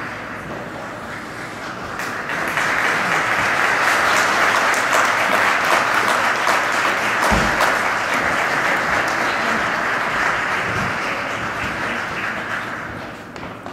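Audience applauding, swelling about two seconds in and tailing off near the end, with a single low thump midway.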